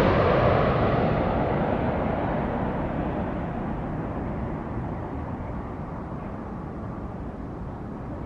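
A landing airplane's engine noise fading steadily as it moves away, the higher pitches dying out first until a low rumble is left.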